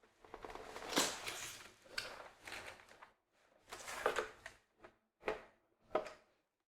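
Parts of a Dyson Grab and Go Dok vacuum floor dock being handled and fitted together: a run of short scrapes, knocks and clicks, about seven in all.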